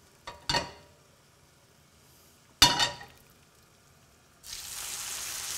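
A couple of light knocks, then a sharp metal clink with a brief ring as the wire spider strainer hits the pan. About four and a half seconds in, hot browned butter starts sizzling as boiled ravioli go into the frying pan.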